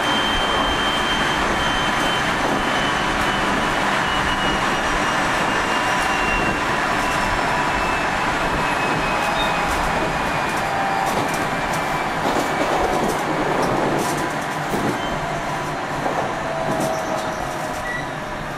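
Running noise heard from inside a 373 series electric multiple unit motor car with MT68 traction motors. A thin whine slides slowly down in pitch over the running noise, and scattered clicks come in about halfway through. This car is known for a severe abnormal running noise.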